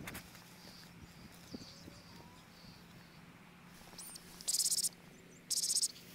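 An insect stridulating in two short, high-pitched buzzy bursts about a second apart near the end, over faint bird chirps in a grassy meadow.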